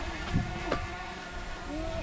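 Small camera drone's propellers buzzing with a steady whine while it is flown back down, with a thump and a sharp click in the first second.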